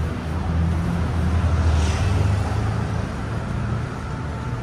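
A motor vehicle engine running close by, a steady low rumble over street noise. It swells about two seconds in, then eases off.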